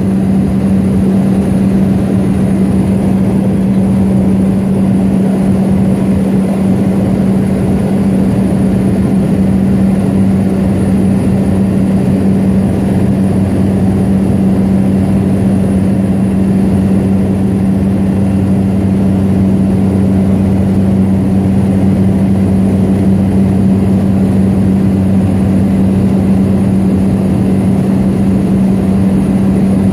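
Seaplane's engine and propeller droning steadily in level cruise flight, heard from inside the cabin, with a constant low hum over rushing noise.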